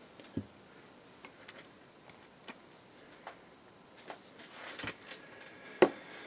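Small clicks and taps of a plastic Vallejo paint dropper bottle being handled over a wet palette, with a soft knock about half a second in, a light rustle of handling, and a sharp knock near the end as the bottle is set down on the desk.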